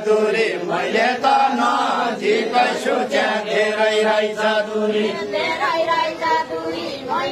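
Men's voices singing a Deuda folk song, a slow unaccompanied melody with long held notes.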